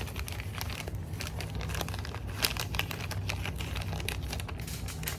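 Crinkling and crackling of an oil absorbent sheet and plastic sample packaging being handled, as a wrapped oil sample bottle is packed. Irregular small crackles over a low steady hum.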